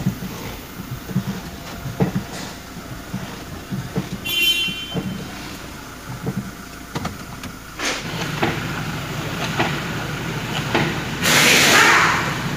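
Irregular clacking knocks from under a 2018 Toyota Fortuner VRZ while the brake pedal is pressed, heard loud inside the cabin; the cause is a broken alarm siren that has come loose from its bracket bolt. A brief high squeal comes about four and a half seconds in, and a louder rushing noise comes in near the end.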